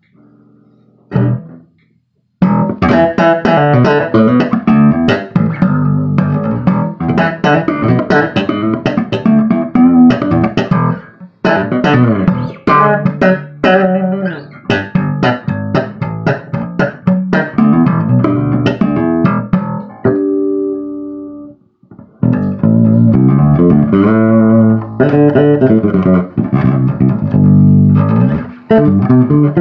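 Amplified electric bass guitar played fingerstyle: quick runs of plucked notes, with a short break about eleven seconds in. Around twenty seconds in, a held chord rings and cuts off, then the runs resume.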